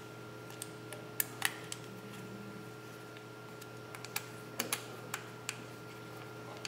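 Scattered light clicks and ticks of a small allen key working 6-32 screws tight in a robot wheel's hub adaptor: a couple about a second in, then a cluster of quick clicks over the last few seconds, over a faint steady hum.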